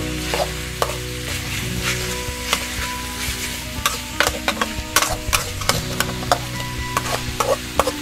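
Metal spatula stirring and scraping a stir-fry in a metal wok, with sharp clacks of the spatula against the pan over a steady sizzle. The clacks come irregularly and bunch up from about four to seven seconds in.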